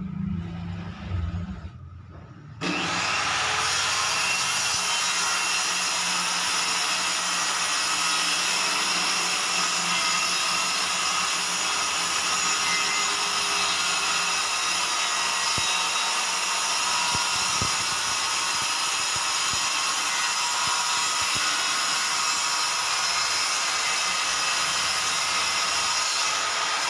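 A handheld corded circular saw comes in suddenly about two and a half seconds in and runs steadily as it cuts across a plywood sheet, after a few low knocks of handling.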